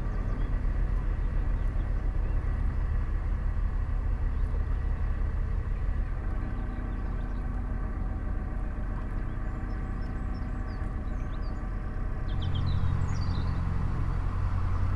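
Narrowboat's diesel engine running steadily at cruising speed, a low even drone that grows a little louder about twelve seconds in.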